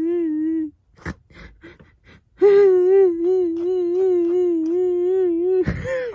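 A parrot calling in a long wailing voice, held on one pitch with an even wobble. A short call stops less than a second in. After a pause with a few soft clicks, a longer call runs about three seconds and ends in a quick pitch sweep.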